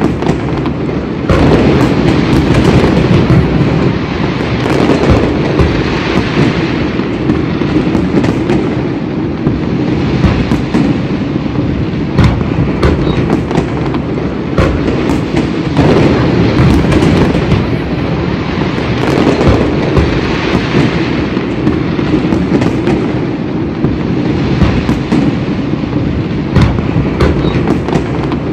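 Many fireworks going off at once: a dense, continuous mass of overlapping bangs and crackles with no let-up.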